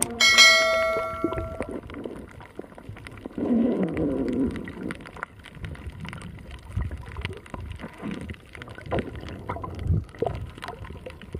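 A click and a bell-like chime at the start, fading within about a second and a half, then muffled underwater sound from a camera held in the sea: gurgling water with scattered knocks and a louder low rush a few seconds in.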